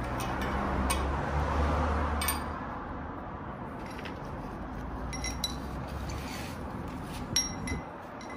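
Steel differential parts clinking as they are handled and set down: sharp metallic clinks that ring briefly, a few scattered through and several in the second half. A low rumble for the first couple of seconds.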